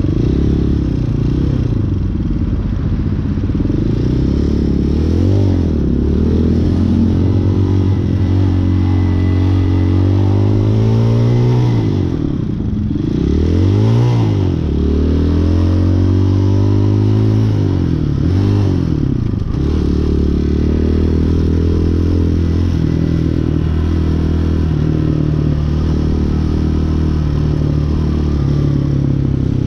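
Hawk 250 dirt bike's single-cylinder four-stroke engine riding through the gears, its revs rising and dropping back again and again, then holding steady while cruising in the last third. The valve lash has just been adjusted; the owner thinks it may still be slightly off tune.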